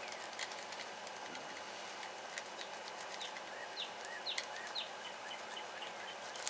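Scattered small clicks of a lock pick working the pin stack of a Lebel pac-lock padlock, against birds chirping several times near the middle and a steady high insect whine.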